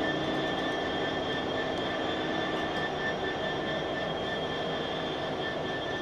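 Class 66 diesel locomotives on a freight train moving away, the rumble slowly fading, with a steady high-pitched ringing over it.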